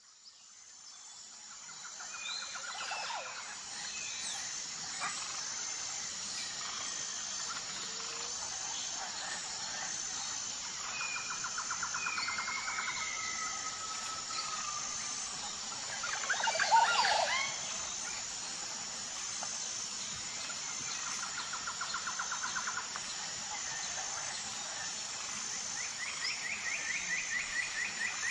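Outdoor birdsong: several birds giving repeated trills and short calls, with a louder burst of calls about seventeen seconds in, over a steady, evenly pulsing high-pitched sound. It fades in over the first couple of seconds.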